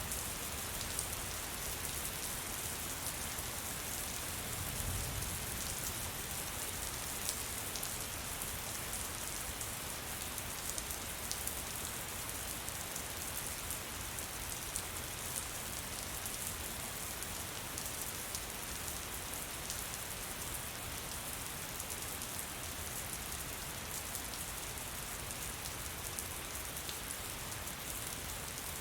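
Steady rain falling on a surface, a continuous hiss with many small drop patters and no music.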